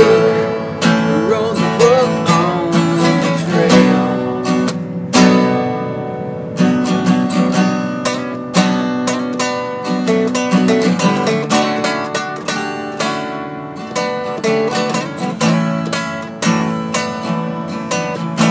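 Two acoustic guitars playing together, strummed chords with steady strokes throughout.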